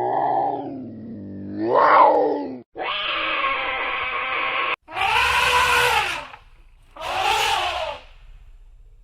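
A series of farm animal calls. A long pitched call rises and falls over about two and a half seconds, then a steady call holds for about two seconds and stops abruptly, then three shorter, harsher calls follow.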